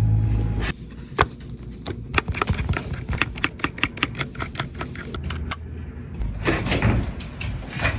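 Rapid, irregular clicking from an iPhone's rear camera module, several ticks a second, typical of a camera damaged when the phone fell on the ground.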